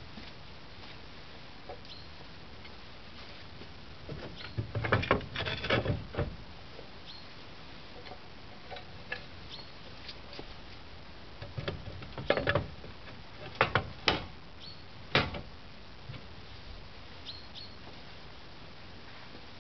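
Concrete roof tiles clacking and knocking against each other and the sheet-metal tile mount as they are set back into place by hand, in two spells of clatter, one a few seconds in and one past the middle, ending with a single sharp knock.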